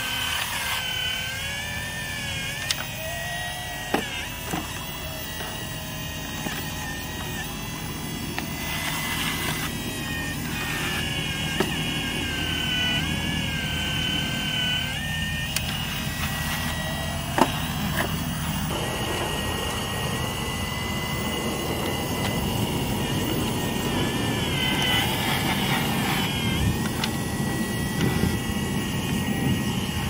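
Electric hydraulic pump motor of a radio-controlled excavator whining steadily, its pitch dipping and recovering as the load changes while the bucket digs. There are a few sharp clicks, and a rougher, lower mechanical noise grows from about two-thirds of the way in.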